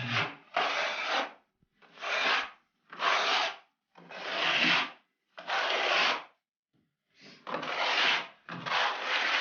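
A plaster wall being scraped by hand, about eight long rasping strokes roughly one a second.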